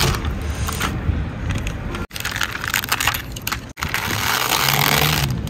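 Brittle sun-dried rabodi discs crackling and crunching as they are peeled off a polythene sheet and gathered, with the plastic rustling. The sound breaks off abruptly twice, about two seconds in and again near four seconds.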